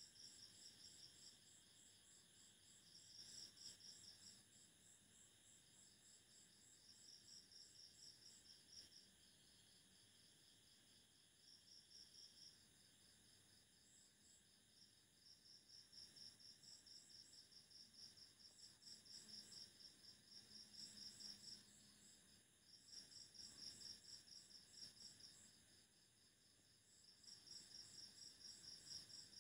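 Insects chirping faintly: rapid, high-pitched pulsed trills that come in bouts of a second or a few seconds, starting and stopping throughout.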